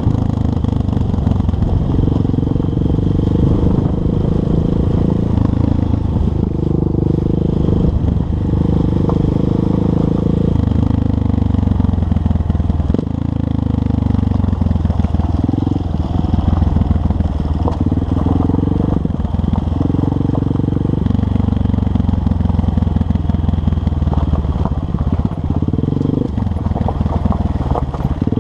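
Honda CRF230M's air-cooled single-cylinder four-stroke engine running under way, its pitch rising and falling every few seconds as the throttle opens and closes.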